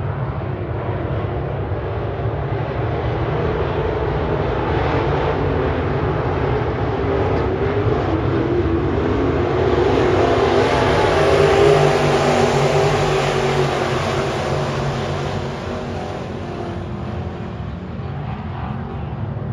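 A pack of IMCA sport mod dirt-track race cars running hard around the oval. Their engines swell to the loudest just past the middle as the field goes by, then ease off.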